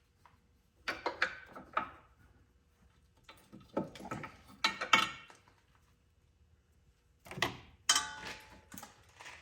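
Metal clinks and knocks from a bolt and tools being worked into a car's lower control arm mount, in three short bursts of clatter, the last with a brief metallic ring.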